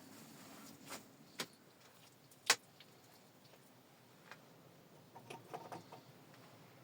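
A few sharp clicks and knocks of handling objects, one much louder about two and a half seconds in, and a cluster of softer knocks near the end.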